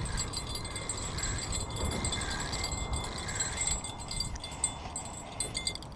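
Wind buffeting a chest-mounted camera's microphone: an uneven, rumbling rush that rises and falls, with faint steady high tones above it.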